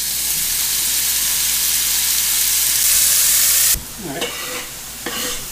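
Mushrooms sizzling loudly as they hit a smoking-hot oiled pan. The sizzle drops suddenly about four seconds in to a quieter frying sound.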